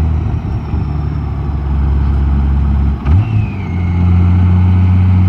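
Honda Gold Wing motorcycle engine running under way. Its note breaks briefly about three seconds in, then runs louder and steadier.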